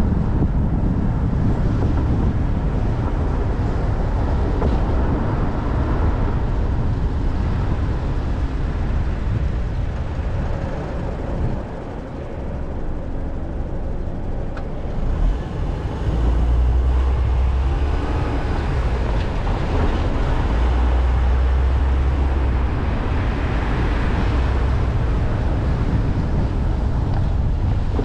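City avenue traffic noise: a steady, deep drone of engines and tyres on the road, dipping a little for a few seconds around the middle and then building again.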